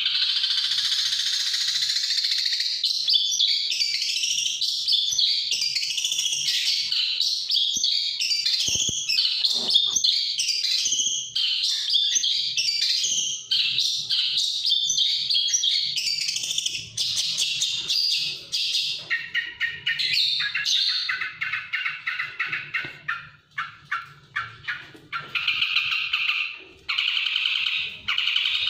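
Long-tailed shrike singing a fast, continuous run of varied chattering and whistled notes, which turns choppier and lower, with short clipped notes, about two-thirds of the way in.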